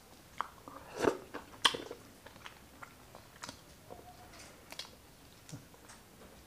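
Cooked shrimp's shell crackling and snapping as it is peeled apart by hand: a string of small crisp clicks, loudest between about one and two seconds in.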